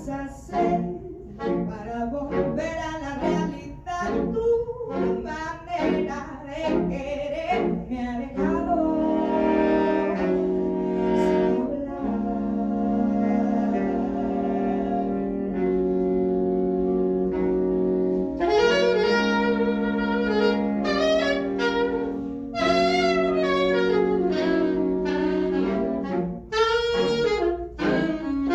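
Saxophone quartet of soprano, alto, tenor and baritone saxophones playing in harmony. It opens with short, detached notes, settles into long held chords about eight seconds in, then breaks into moving lines again about ten seconds later.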